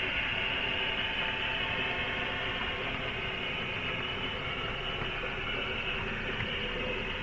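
Model passenger train running past close by on the adjacent track: a steady whirring rumble of its motor and wheels that eases off slightly toward the end.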